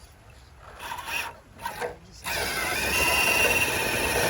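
Electric motor and geared drivetrain of an RC rock crawler whining under throttle, starting about two seconds in with a high whine that dips briefly and then holds steady.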